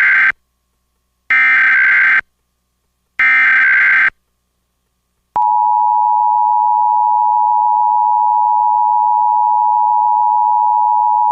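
Emergency Alert System SAME header tones encoding a high wind warning: the tail of one data burst and then two more, each about a second long with a short gap between. About five seconds in, the EAS two-tone attention signal starts and holds steady at one pitch.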